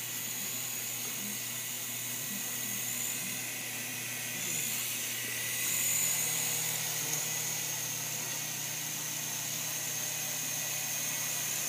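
Tiny indoor RC helicopter flying: the electric motor and rotors make a steady high-pitched whine, which grows louder as it passes close about five to seven seconds in.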